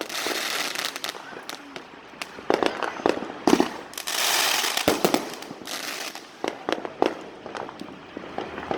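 Fireworks going off: a rapid, irregular run of sharp bangs and pops, with spells of hissing crackle, the longest about four seconds in.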